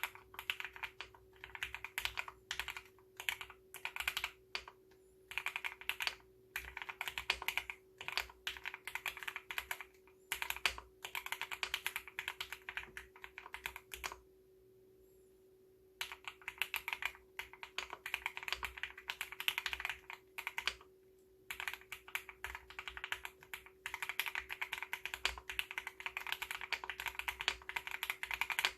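Typing on an Owlab Mr. Suit R3 mechanical keyboard with Gateron Cap Gold V2 switches: runs of fast keystrokes broken by short pauses, one of about two seconds near the middle.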